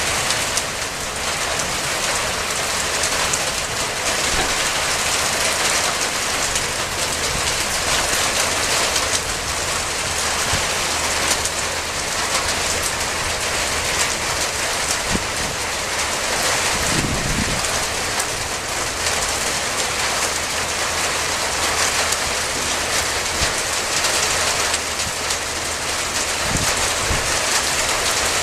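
Steady hiss of rain, with a short dull low rumble about halfway through and another near the end.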